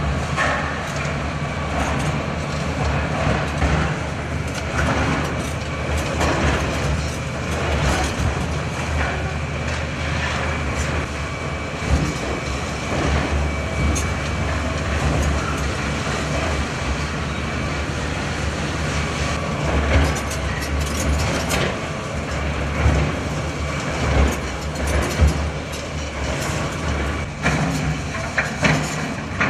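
Diesel engine of a heavy construction machine running steadily, with scattered knocks and crashes from demolition work.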